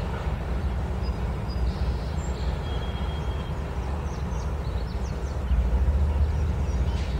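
Diesel locomotives at the head of a Norfolk Southern double-stack freight train rumbling low and steady as the train rolls slowly closer, growing louder about five and a half seconds in.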